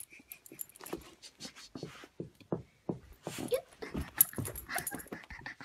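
Excited dog panting in quick, irregular breaths.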